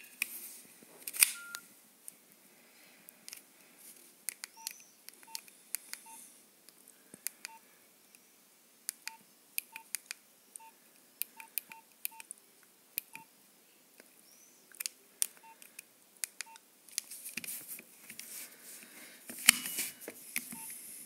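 Nokia 2220 slide phone: the slider clicks open about a second in. Then come repeated key presses, sharp plastic clicks, many of them with a short beep of the keypad tone, all at the same pitch and at irregular intervals.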